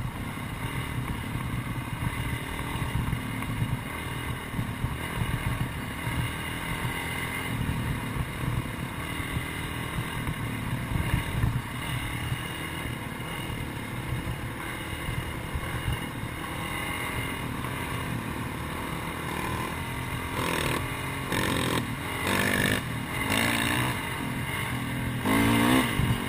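Motocross dirt bike engine running while riding a dirt trail, heard from the bike's own mounted camera. Near the end it revs up harder in several louder surges, its pitch rising and falling.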